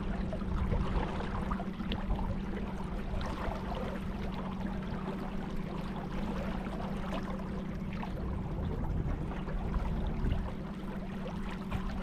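Boat motor running at a steady pitch, with water splashing and rushing along the hull.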